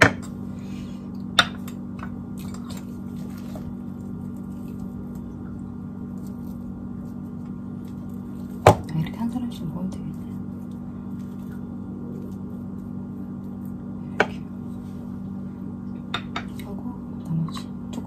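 Occasional sharp clinks of cutlery and dishes during a meal over a steady low hum. The loudest clink comes about nine seconds in.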